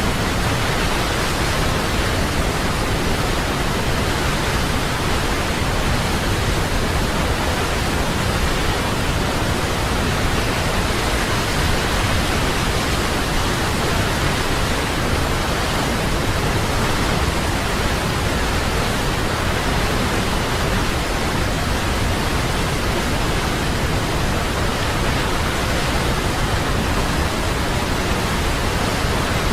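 Waterfall rushing: a steady, even hiss of falling water, spread from deep to high pitches, with no change in level.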